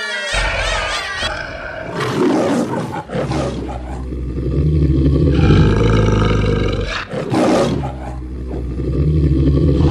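Loud, deep monster roaring in long stretches, breaking briefly about three and seven seconds in, with children shrieking and laughing.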